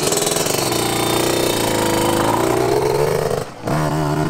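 Yamaha YZ125 two-stroke motocross engine running and being revved: its pitch climbs about a second in, eases back down, and drops out briefly near the end before picking up again.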